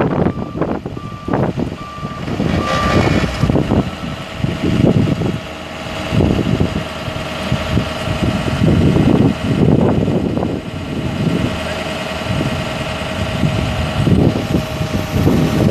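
Ford F550 bucket truck's 6.0L V8 diesel running, with a backup alarm beeping at an even pace for the first three seconds or so. A steady whine then comes in over loud, irregular rushing surges.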